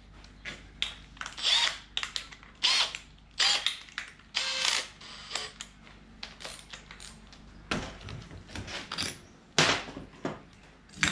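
Makita cordless drill in short bursts of motor whir while its keyless chuck ratchets as the bit is changed. A few sharp knocks come in the second half.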